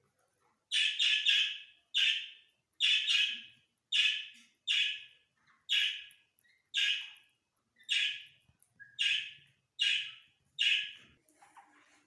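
Gray francolin calling: about a dozen loud, harsh calls, each starting sharply and fading, repeated a little faster than once a second and stopping near the end.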